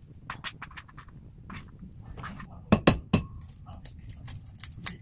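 Kitchen utensils clinking and knocking against dishes during food preparation, a run of light clicks with three louder knocks in quick succession about three seconds in.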